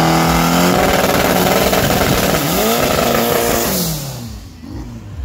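Drag-racing VW Gol's engine revving hard during a burnout, over a loud hiss of spinning, smoking tyres. The revs hold high, dip and climb again, then fall away near the end.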